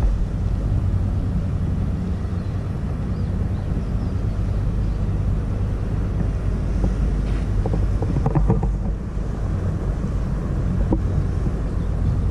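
Low, steady drone of a passing ship's engine, with wind buffeting the microphone and a few short knocks a little past the middle.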